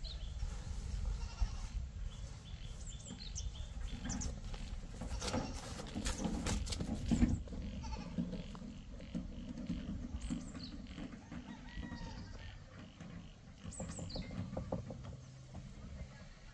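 Farm animals calling now and then over a low rumble, with a flurry of clicks and knocks about halfway through.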